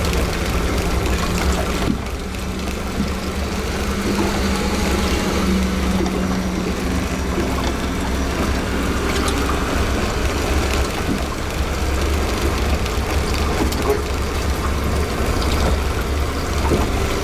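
A Honda 90 four-stroke outboard motor idling with a steady, even low hum.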